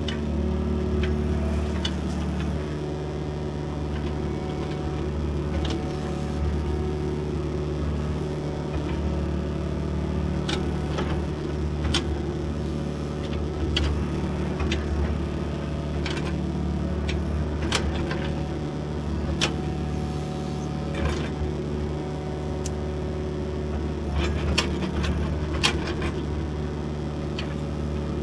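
Excavator's diesel engine running at a steady speed, with sharp knocks and clicks now and then, more of them in the second half.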